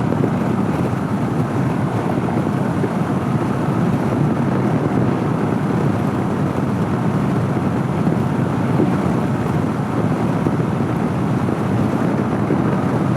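Steady wind rush over the microphone, with the 2014 Honda CB500X's parallel-twin engine and road noise underneath, as the motorcycle cruises at freeway speed.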